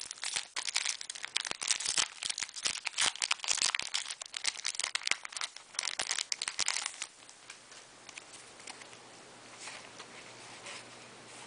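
Foil Yu-Gi-Oh! booster pack being torn open and crinkled by hand, a dense crackling that stops about seven seconds in. After that, only faint rustles of the cards being handled.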